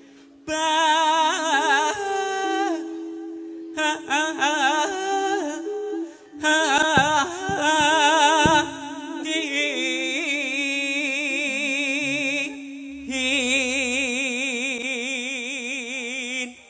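A solo singer sings several long, wavering phrases with heavy vibrato into a microphone, with short breaks between them, over steady sustained accompanying tones, in Javanese campursari style.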